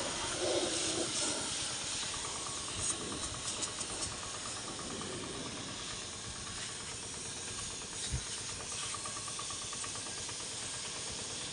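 Pressure-washer lance spraying a steady hiss of high-pressure water onto a truck's wheel rim and tyre, rinsing off touchless foam cleaner.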